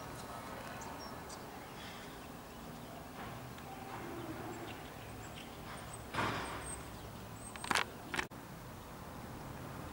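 Quiet outdoor ambience with a steady background hiss and faint high chirps. A short rustling burst comes about six seconds in, and two sharp clicks follow near eight seconds.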